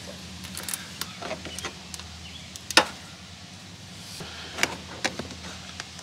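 Plastic interior trim on a Jeep Wrangler JKU being pried off by hand, its clips popping and the plastic clicking and snapping several times, one snap sharper than the rest a little under three seconds in. A steady low hum runs underneath.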